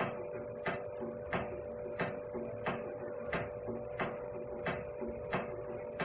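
Background music with a steady beat, about one and a half beats a second, over a held tone.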